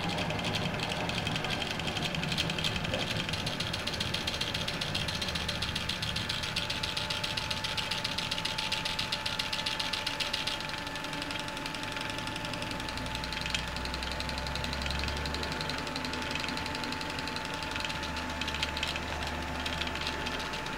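The two small stepper motors of a mini drawing laser projector chattering rapidly as they swing the beam to trace patterns, over a steady whine. The ticking lightens about halfway through, and a low hum joins about two-thirds through.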